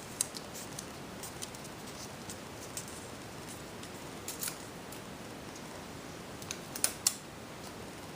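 A paper strip being rolled by hand into a small tube, giving faint crisp clicks and crinkles over a steady hiss. Two sharper snaps come about seven seconds in.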